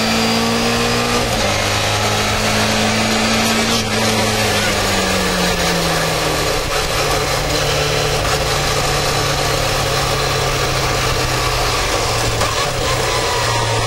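Rally car engine heard from inside the cabin, holding steady revs, then dropping in pitch about four to six seconds in and running on steadily at lower revs as the car eases off.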